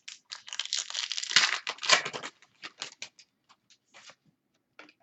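A foil trading-card pack being torn open, its wrapper crinkling densely for about two seconds, followed by scattered light clicks and rustles as the cards are handled.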